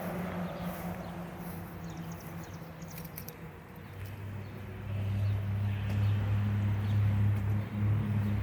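Church bells ringing, their low, steady tones growing louder about five seconds in.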